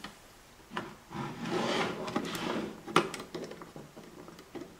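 A metal chassis panel being worked into place over a circuit board: rubbing and scraping with a few light clicks, and one sharper click about three seconds in.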